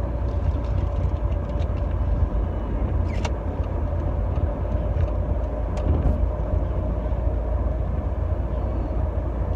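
Steady low rumble of a car's engine and tyres on the road, heard from inside the cabin while driving, with a few short clicks.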